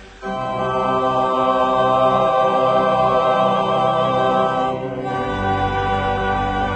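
Organ playing slow, held chords with voices singing along. A new chord comes in just after the start, and deeper bass notes enter about five seconds in.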